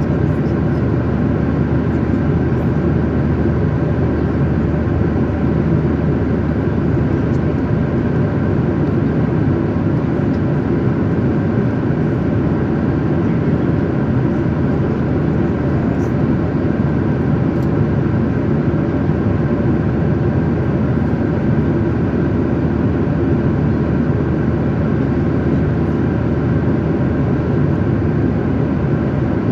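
Steady cabin noise of a jet airliner in flight: the engines and rushing air heard from inside the passenger cabin, an even roar with faint steady tones and no changes.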